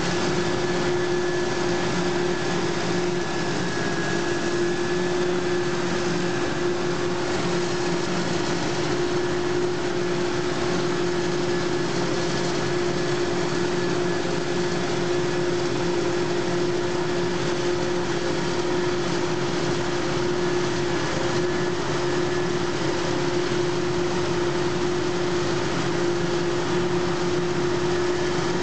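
Claas self-propelled forage harvester chopping maize and blowing it into a trailer alongside, with tractor engines running: a steady machinery drone with a constant humming tone.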